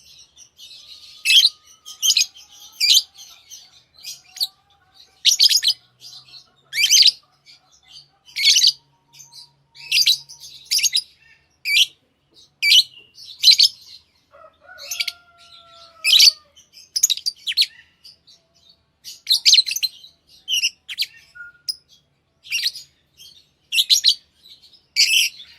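Lovebirds giving shrill, sharp chirps in short bursts, irregularly repeated about one or two a second.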